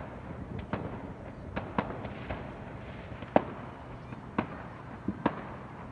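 Fireworks going off in an irregular string of sharp bangs, roughly one or two a second, with the loudest about three and a half seconds in, over a steady low rumble.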